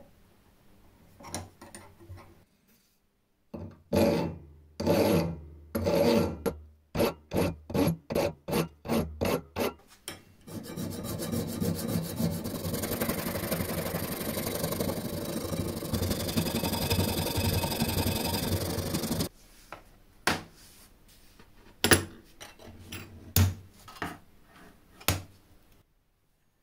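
Hand file rasping across the edge of a titanium bar clamped in a bench vise: three long strokes, then a quick run of shorter strokes, then about eight seconds of fast, continuous filing. A few sharp knocks and clicks follow near the end.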